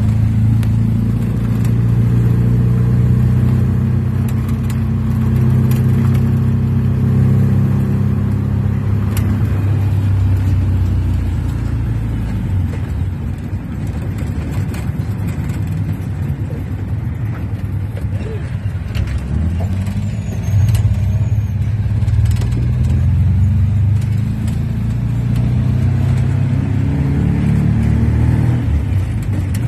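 Owner-type jeep's engine running under way on a road test, heard from the driver's seat. The engine note eases off around the middle and pulls harder again later, with a few brief rattles.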